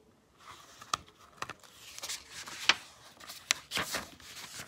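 Paper rustling as a page of a picture book is turned and handled, with a handful of sharp crackles of the paper.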